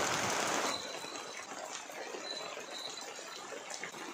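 A steady watery hiss, loud for the first second or so and then dropping to a lower level, with a few short, faint high tones over it.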